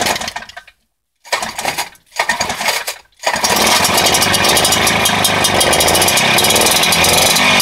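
Tomos two-stroke engine of a Robi-52 rotary tiller being started on a newly fitted Simson 16N3 carburettor whose air screw is not yet adjusted: it fires in a few short bursts that die out, then catches about three seconds in and keeps running steadily.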